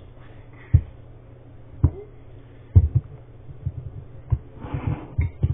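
Spoon working a thick toothpaste and baking soda mixture in a bowl, giving dull low knocks. At first they come about a second apart, then they bunch up and come quicker in the second half, over a steady low hum.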